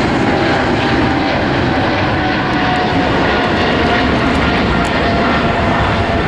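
Boeing 777 freighter's GE90 turbofans at takeoff thrust as the jet climbs away: a loud, steady jet noise with a faint whine that slowly falls in pitch.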